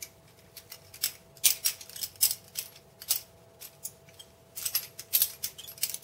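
Benchmade 42 balisong being flipped through rollovers: its handles, latch and blade click and clatter in irregular bursts, with pauses between runs. The knife's pivots are unoiled and squeaky.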